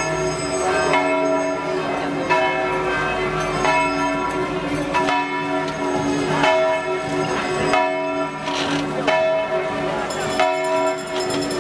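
Church bells ringing a festive peal: several bells struck again and again at a steady pace, their tones overlapping and ringing on between strokes.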